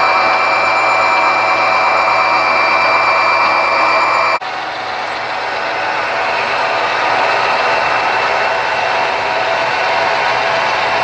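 HO scale model freight train rolling past, a steady whirring rush with a thin whine over it; about four seconds in the sound changes suddenly to a plainer, hissier rush.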